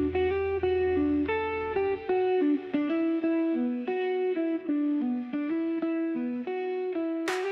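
Background music: a picked guitar melody of separate notes, with a low bass note that drops out about two seconds in and a sharp hit just before the end.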